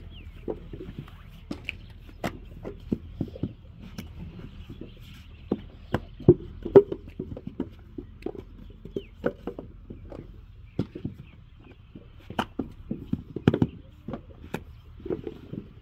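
Irregular sharp knocks and clacks, some much louder than others, over a faint steady background.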